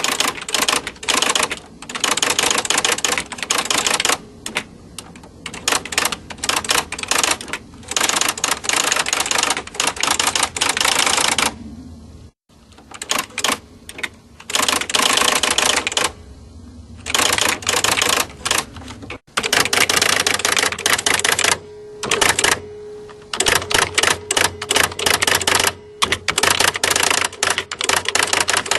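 Typewriter typing: keys striking in fast, rapid runs of clicks, broken by short pauses and two brief full stops.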